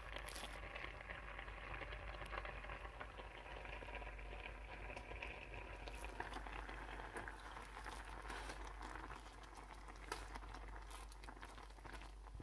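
Jasmine rice boiling in a stainless-steel pot of water: a faint steady bubbling with many small pops.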